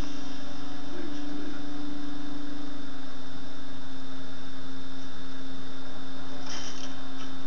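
A steady hum at one pitch over a constant low background noise, with a short rustle about six and a half seconds in.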